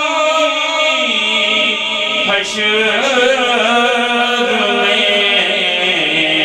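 A male voice reciting a naat (Urdu devotional poem) in a chanted melody, drawing out long held notes that waver in pitch, with no instruments.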